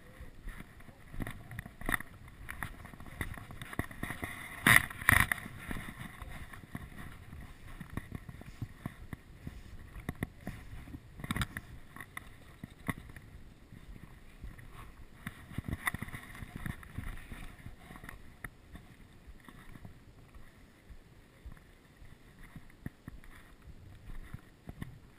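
Footsteps crunching irregularly on gravel, over a low buffeting rumble of wind on the microphone. There is a louder bump about five seconds in.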